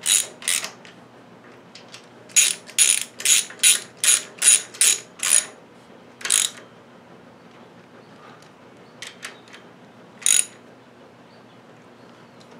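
Socket ratchet clicking in short strokes as it turns the water-outlet bolts on a Ford Model T cylinder head. There are two strokes at the start, then a run of about eight quick strokes, then a few single clicks later on.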